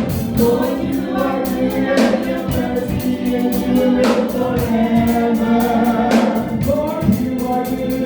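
Live gospel worship music: a choir singing held notes over organ and band, with a cymbal crash about every two seconds.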